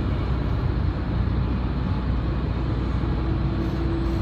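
Steady engine and road rumble inside a moving vehicle's cabin on a highway, with a steady hum joining about three seconds in.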